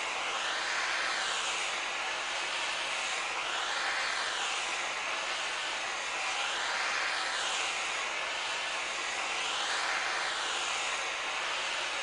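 Hand-held propane torch burning with a steady hiss. Its tone sweeps up and down about every three seconds as the flame is moved up and down a metal vaporizer pipe, heating the oxalic acid inside.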